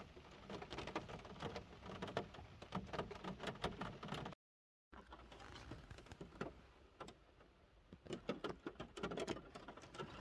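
Rain patter: many small, irregular drop clicks over a soft background hiss. The sound cuts out completely for about half a second partway through.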